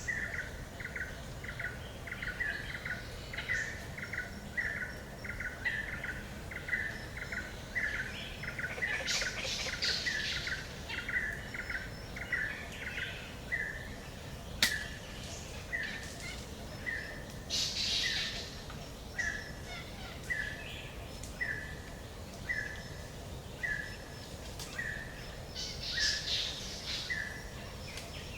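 Forest birdsong. One bird repeats a short note, about two to three times a second at first and slowing to about once a second in the second half, while other birds chirp higher in brief bursts. A single sharp click comes about halfway, over a low steady background rumble.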